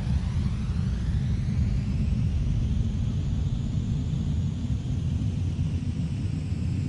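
Steady low rumble of a sound effect for an animated magnetic engine running, with a faint slow sweeping whoosh above it.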